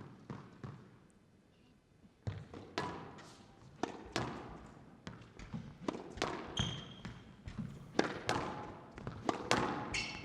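Squash rally: the ball cracks sharply off rackets and the court walls at irregular half-second to one-second intervals, starting about two seconds in. Short high squeaks come twice, near the middle and near the end.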